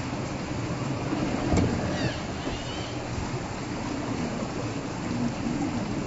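Shallow creek water running over rocks while the electric drive of an RGT 86100 rock crawler runs steadily as the truck crawls through it. One knock about a second and a half in.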